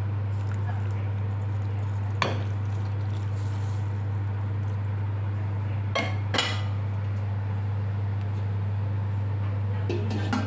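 Kitchen utensils clinking against pots or dishes a few times, over a steady low hum.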